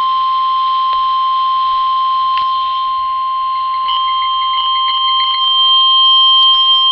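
NOAA Weather Radio warning alarm tone: a single steady 1050 Hz tone, breaking up briefly a few times past the middle, then cutting off. It is the signal that a warning-level alert follows, here a flash flood warning.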